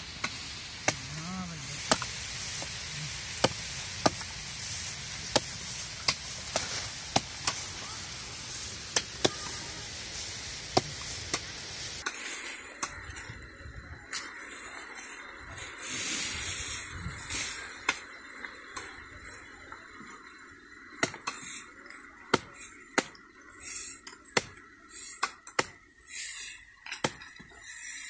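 Small hatchet chopping napier grass canes into short planting cuttings, a sharp chop about once a second.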